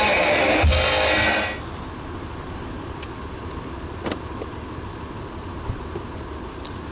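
Crowd chatter that cuts off about a second and a half in, followed by a steady low background rumble with a few faint clicks.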